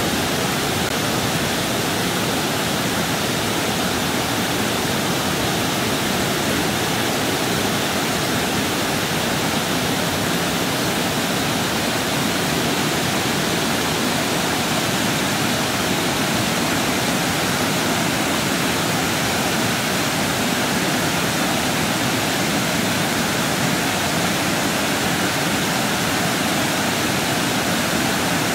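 River water pouring over a low weir: a steady, unbroken rushing noise.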